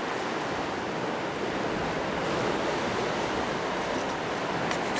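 Sea surf washing steadily on a rocky shore: an even, continuous rushing noise.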